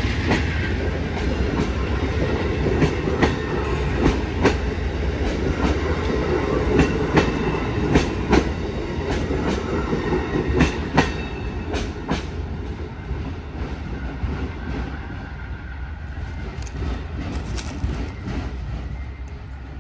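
Amtrak passenger train rolling past, a steady rumble with the wheels clicking sharply over rail joints. The sound grows fainter over the second half as the train moves off.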